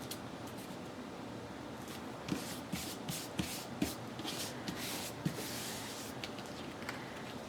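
A run of about ten quick, scratchy strokes on paper over three seconds, some with soft knocks, over a steady low hiss: paper being rubbed and handled in papercraft work.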